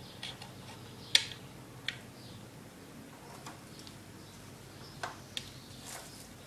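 A handful of light, scattered clicks and taps from hand work fastening screws into a wooden bird house base, the loudest about a second in; no drill motor is heard.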